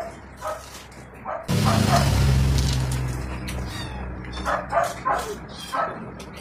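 A dog barking repeatedly in short yaps. About a second and a half in, a loud rushing noise with a low drone starts suddenly and fades away over the next few seconds, and then the barking comes back.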